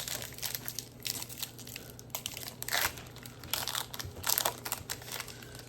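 A trading-card pack's plastic-foil wrapper crinkling and tearing as it is opened by hand, in irregular crackles with the loudest about three and four and a half seconds in.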